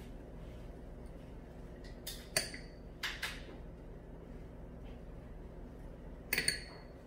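Small spice prep bowls clinking against the pan and counter: a few light knocks with a short high ring about two to three seconds in, and a quick cluster of them near the end, over a low steady hum.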